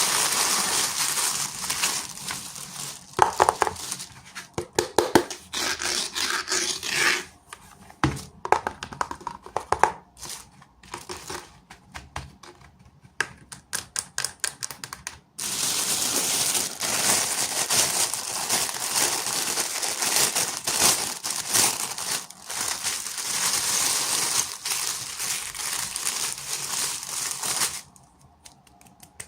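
Packaging wrapper crinkling and tearing as a miniature toy is unwrapped. A stretch of scattered sharp clicks and taps comes in the middle, then more steady crinkling, which drops away near the end.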